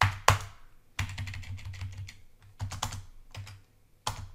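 Typing on a computer keyboard: two sharp key strikes at the start, then a quicker run of keystrokes from about a second in.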